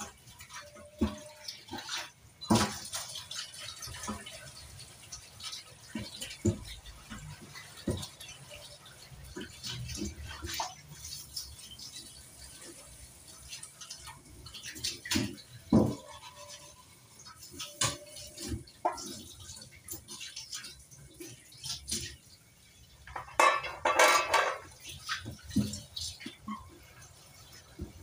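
Dishes being hand-washed in a stainless-steel sink: scattered clinks and knocks of pots and utensils with water splashing and dripping, and a louder spell of washing noise about 23 seconds in.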